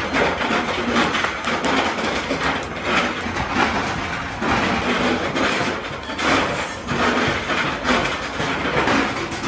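Steady mechanical clatter and rumble of running machinery, surging irregularly in loudness.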